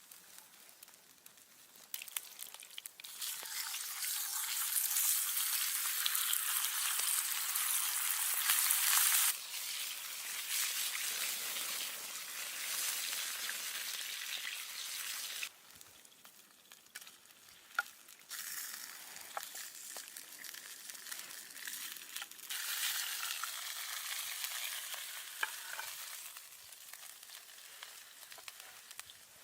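A sizzling hiss like food frying in a pan. It is loudest for the first several seconds, stops abruptly a few times and starts again.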